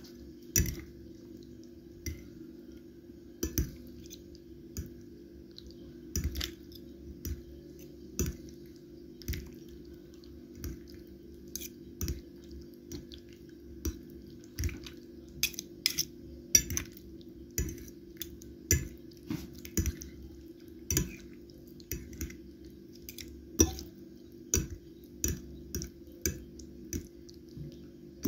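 A utensil stirring sliced mushrooms and dill in a marinade, clinking against the dish at irregular intervals about once a second. A steady low hum runs underneath.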